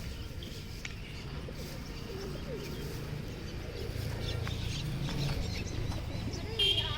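Pigeons cooing, several low rising-and-falling coos over a low background rumble, with a brief high-pitched sound near the end.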